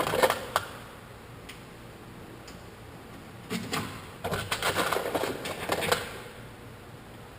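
Light clicks and knocks from tools and parts being handled: a short cluster at the start, then a denser run from about three and a half to six seconds in.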